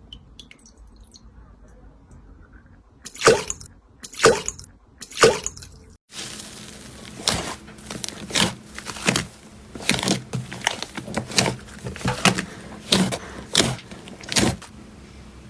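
Slime being squeezed and poked by hand, making wet squelches and pops. First come three loud squelches about a second apart, then, after a brief pause, a steady run of squelches about twice a second.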